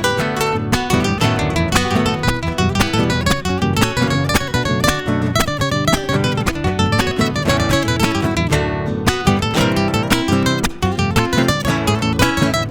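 Acoustic guitar strumming an instrumental gato, the Argentine folk dance, in a fast, driving rhythm of chord strokes, with a final chord struck at the very end.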